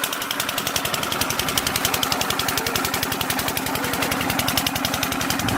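An engine running steadily with a fast, even pulse and a low hum.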